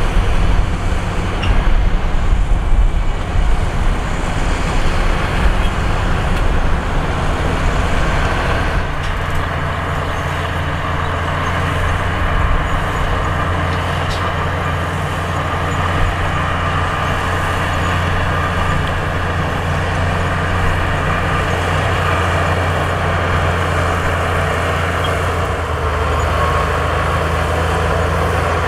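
Heavy diesel engines of earthmoving machinery running. An uneven low rumble for the first several seconds settles into a steady drone.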